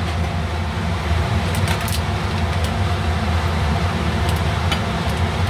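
A steady low mechanical hum, with a few faint rustles and clicks as frozen cut okra is tipped from its plastic bag into the pot and stirred with a wooden spoon.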